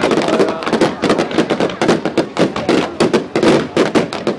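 Fireworks display: a loud, continuous barrage of rapid bangs and crackles, many bursts a second.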